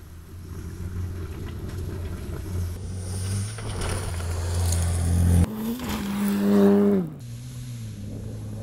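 Bowler Defender rally car's 2.0-litre turbocharged four-cylinder petrol engine running hard on a dirt stage, with rushing tyre and dirt noise. About five and a half seconds in, the engine note climbs to its loudest and then drops sharply as the driver lifts off, settling to a lower steady note.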